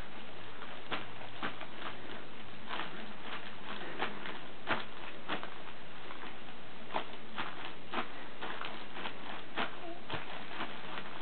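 Plastic bag of paint crinkling in short, irregular clicks as a baby's feet press and kick on it, over a steady hiss.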